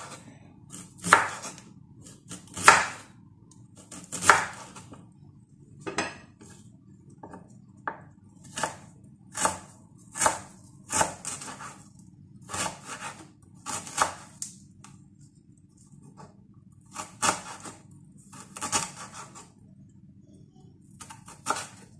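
Chef's knife slicing ginger on a wooden chopping board: a series of short, sharp cuts, each ending in a knock of the blade on the wood, coming unevenly at about one a second with a brief pause past the middle.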